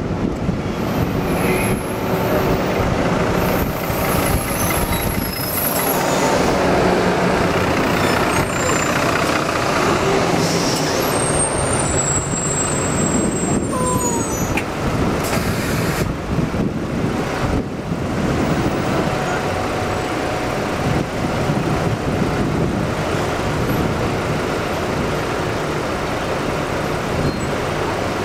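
Open-top tour bus running through city traffic, its engine and road noise heard from the upper deck, with a few brief high squeals about halfway through.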